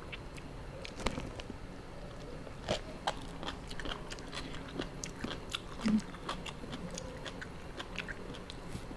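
Close-miked chewing and biting of tam thale, spicy mixed-seafood papaya salad: an irregular run of small wet mouth clicks and crunches.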